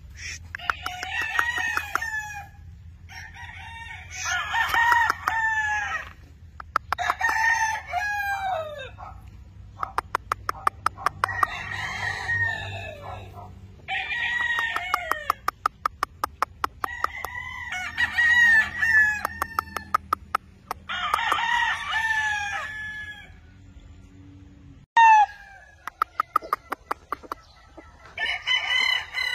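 Gamefowl stags crowing one after another, a crow every two to three seconds, each crow a second or two long and often overlapping the next bird's. Quick runs of clicks fall between some of the crows.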